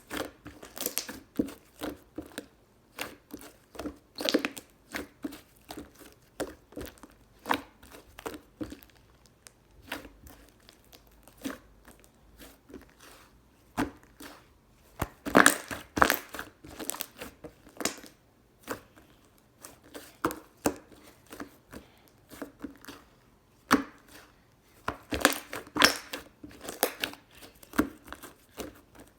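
Slime being squeezed and stretched by hand, making irregular sticky pops and crackles, with louder clusters of pops about halfway through and again near the end.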